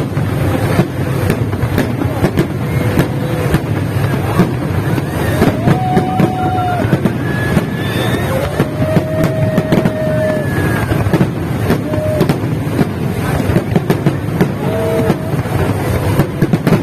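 Fireworks display: a steady low rumble with frequent sharp bangs and crackles, and a few short held tones over it in the middle.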